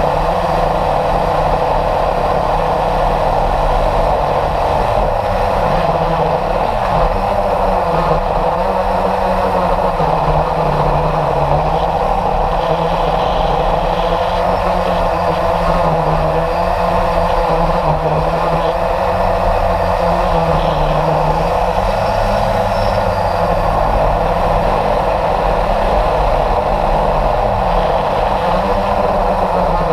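Steady whir of a model jet's motor in flight, picked up by a camera mounted on the aircraft, with rushing wind over it; the pitch rises and falls gently.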